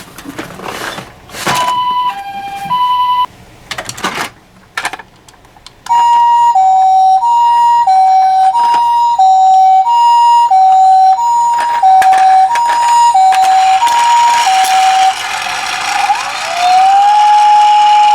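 Ambulance siren in the Japanese two-tone style, alternating a higher and a lower note at about one high-low pair every 1.3 seconds. It comes in briefly after a few knocks, then runs steadily. Near the end a wailing siren rises and holds one note.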